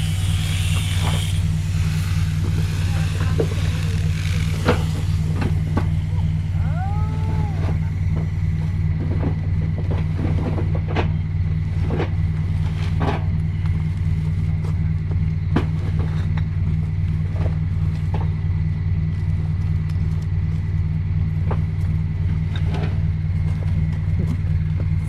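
An engine running steadily with a constant low hum, with scattered knocks and clatter over it throughout.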